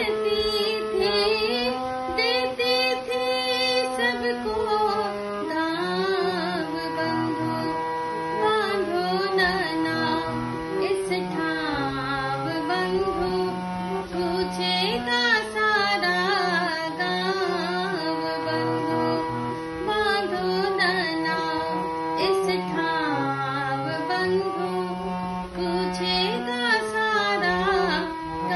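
A woman singing a Hindi song to her own harmonium accompaniment: held reed notes and chords under a melodic vocal line that rises and falls.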